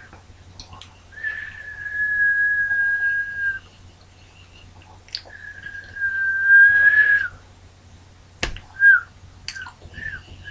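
A person whistling with a mouth full of crackers: two long, steady whistled notes of about two seconds each, then a single click and a few short, wobbly chirps near the end.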